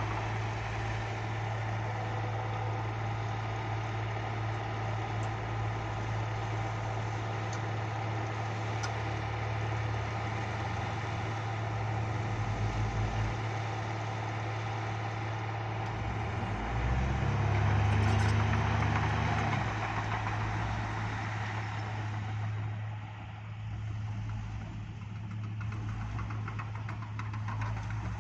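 Bulldozer's diesel engine running steadily with a deep hum. About two-thirds of the way through it swells louder for a few seconds, then eases off.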